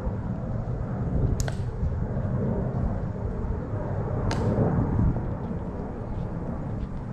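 Two sharp clicks from the tomb guards' drill, about three seconds apart, over a steady low rumble.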